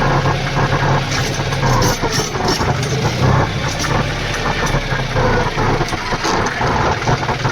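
Tractor's diesel engine running steadily at idle, with a few short clicks and knocks over the hum.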